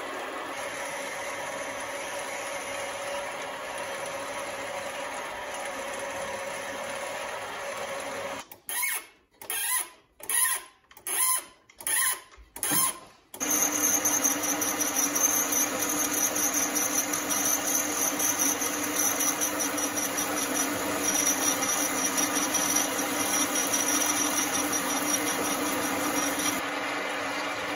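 Small metal lathe running while a tailstock drill bores into the workpiece. About halfway through the sound breaks into five short bursts, then it gets louder and steadier with a high whine as a cutting tool turns an aluminium hammer end.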